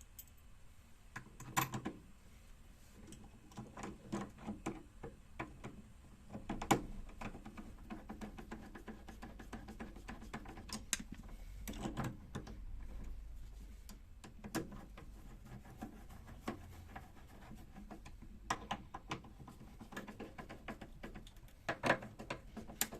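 Irregular clicks, taps and knocks of small fridge hinge parts and screws being handled and fitted by hand, with a few sharper knocks now and then.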